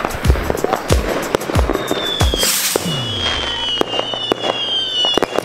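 New Year's fireworks going off in rapid succession: many sharp bangs and deep booms. From about two seconds in, a long whistle slowly falls in pitch over the bangs.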